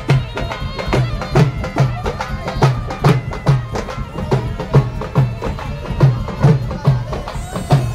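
Live Indian folk music: a been, the snake-charmer's reed pipe, plays a wavering, reedy melody over dhol drums beating a steady rhythm a little over twice a second.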